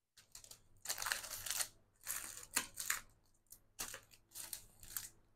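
Plastic packaging crinkling and rustling as it is handled, in several short bursts.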